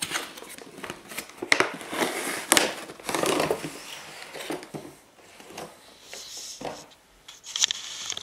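Cardboard model box and its foam packaging being opened and handled: irregular rustling and scraping with sharp clicks and taps, a longer scraping rustle about three seconds in, and a quick run of sharp clicks near the end.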